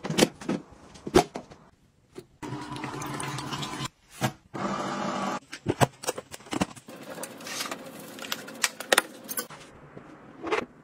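Household handling sounds: sharp plastic clicks and knocks, with a small machine running in two short spells of steady hum, the first about two seconds in.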